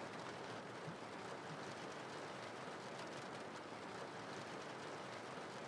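Quiet, steady rain ambience: an even, continuous hiss of falling rain.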